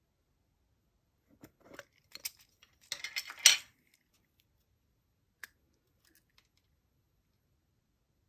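Light plastic clicks and a rattling clatter as a round plastic compartment case of tiny heart-shaped nail-art parts is handled; the rattle is densest about three and a half seconds in, and one more sharp click follows a couple of seconds later.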